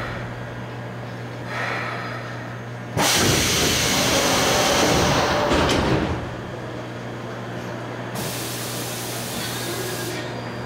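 Seoul Metro 2000-series subway car standing at a station, its steady low hum underneath. About three seconds in a sudden loud burst of compressed-air hiss lasts about three seconds as the pneumatic doors work, and a second, thinner air hiss comes for about two seconds near the end.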